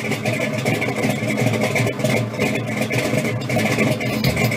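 A car engine idling with a rapid, even firing beat.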